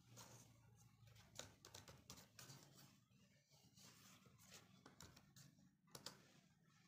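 Near silence with faint, scattered clicks of laptop keys being typed, one a little louder near the end.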